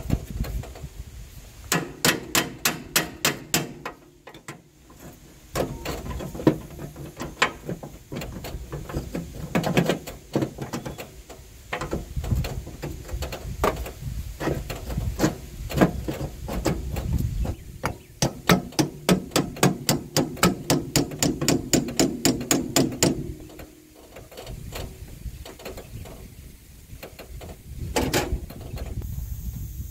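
Hammer striking metal in quick bursts of about six blows a second, with short pauses between the bursts.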